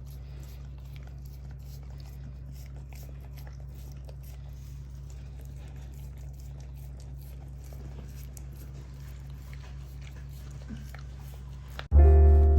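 A dog chewing and crunching a treat: faint, irregular clicks and crunches over a steady low hum. Piano music cuts in suddenly near the end.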